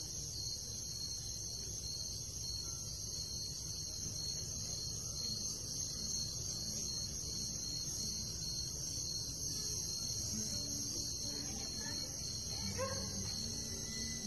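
Steady high chirring of a cricket chorus. Faint low notes and a short rising tone come in near the end as music begins.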